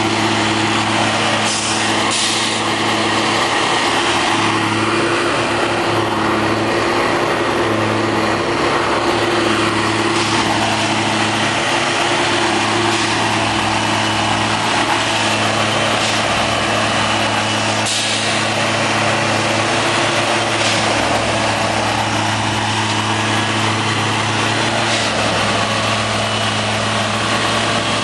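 Plasser ballast tamping machine working the track: a steady diesel engine drone with a low hum that swells and eases in repeated cycles as the tamping unit works the ballast, with a few brief sharp hisses.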